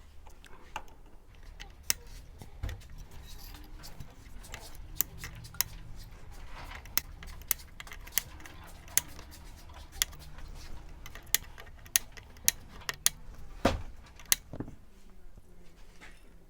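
Wire cutters snipping the excess capacitor leads off the underside of a freshly soldered TV power supply board: about twenty sharp, separate snips at an uneven pace.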